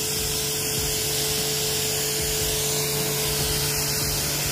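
Aimex D7 1800-watt electric pressure washer running with its water jet fanned out into a wide spray: a continuous, even hiss of high-pressure water over a steady motor hum.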